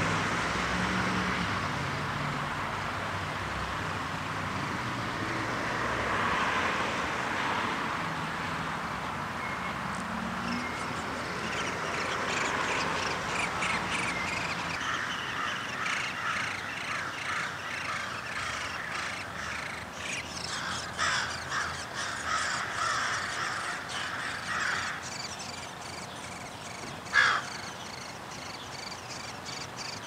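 Harsh, raspy bird calls: a quick run of short repeated notes starting about ten seconds in and lasting over ten seconds, then one sharp, louder call near the end.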